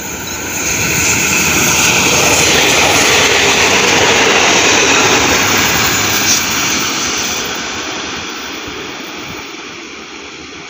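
Diesel express railcar train passing at speed: engine and wheel-on-rail noise swell over about two seconds, hold loud, then fade slowly as it draws away.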